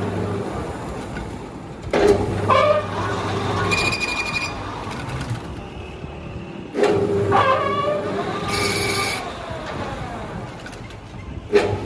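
Manual lathe running during thread cutting: a steady machine hum with a sudden surge about every five seconds, and a brief high metallic squeal twice.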